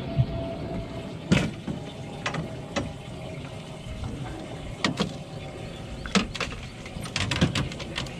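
Scattered knocks and clicks of a landing net and gear being handled on a boat, with a quick run of clatters near the end, over a steady hiss of wind and water.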